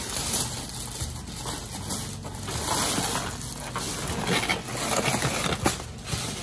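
Takeout food packaging, styrofoam clamshell boxes and plastic, being handled and shifted: irregular rustling and crinkling with small knocks.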